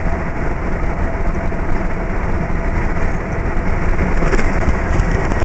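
Delivery truck cab noise while driving: a steady, loud rumble of engine and road noise, cutting off abruptly at the end.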